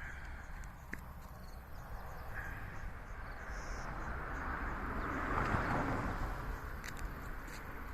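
A vehicle passing, its noise swelling to a peak about five and a half seconds in and then fading, with steady high chirping in the background.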